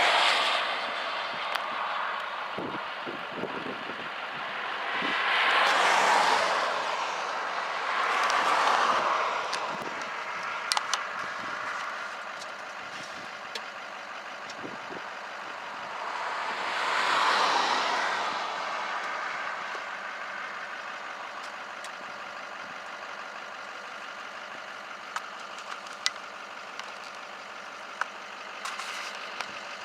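Road traffic: vehicles passing one after another, each swelling up and fading away over a couple of seconds, four times, over a steady background hiss with a few faint clicks.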